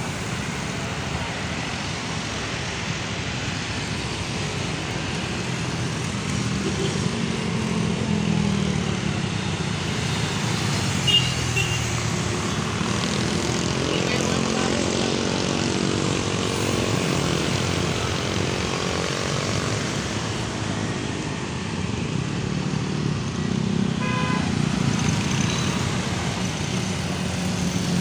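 Road traffic: a steady rumble of motor vehicles, with one engine passing closer about halfway through and a brief sharp sound about eleven seconds in.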